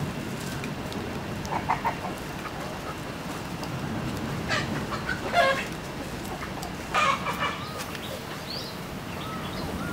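Chickens clucking in three short bursts over a steady background hiss, with thin high chirps near the end.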